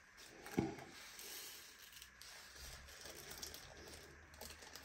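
Faint handling of a small plastic bag of black resin diamond-painting drills, opened and tipped so the drills fall onto a plastic drill tray, with one sharper click about half a second in.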